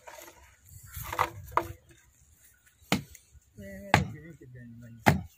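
Sharp knocks, four or five of them about a second apart, made during hands-on work on a stopped small stationary engine. The engine is not running.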